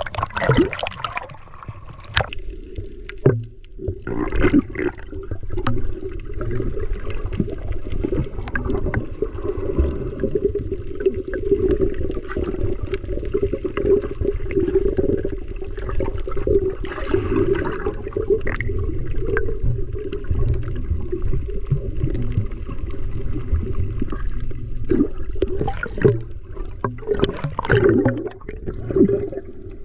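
Water gurgling and sloshing, with a steady low rumble underneath and occasional brief splashes.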